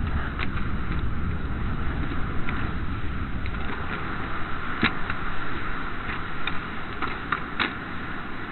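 A big heap of burning matches, the flames making a steady rushing roar with sharp crackles and pops scattered through it, the strongest about five seconds in.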